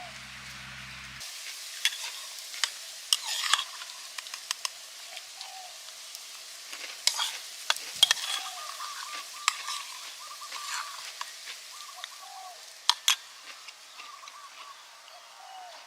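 A hot pan over a wood cooking fire, sizzling steadily, with scattered sharp clicks and knocks, the loudest about halfway through and again near the end.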